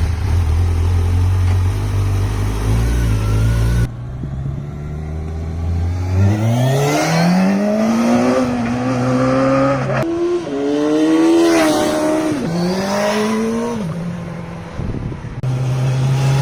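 Kawasaki Ninja 1000's inline-four engine idling, then revved up and held high three times, with short drops between, before falling back to idle.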